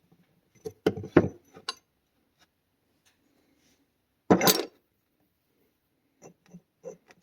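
Hard engine parts being handled on a workbench: a few light clinks and knocks, a louder clatter about four seconds in, then small clicks near the end.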